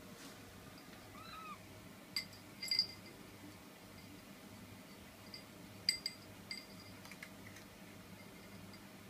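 A domestic cat gives one short, faint meow, rising then falling in pitch, about a second in. Several sharp clicks and taps follow, the loudest near three seconds and again near six seconds.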